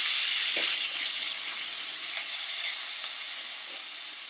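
Chopped onion sizzling as it hits hot vegetable oil and browned curry powder in a frying pan, loud at first and gradually dying down.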